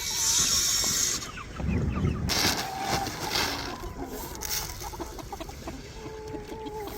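Chickens clucking and calling, with a few longer held calls in the second half. A rustling hiss fills the first second.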